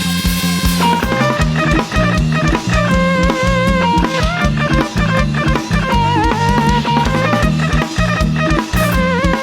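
Thai brass band (trae wong) with drum kit playing upbeat dance music: a fast steady drum beat and bass line under a wavering, vibrato-laden horn melody.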